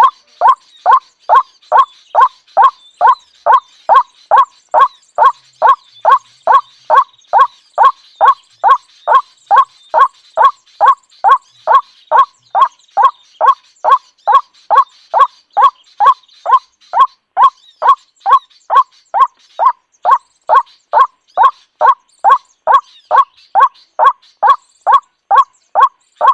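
A bird calling one short note over and over, about two a second, in an even, unbroken rhythm.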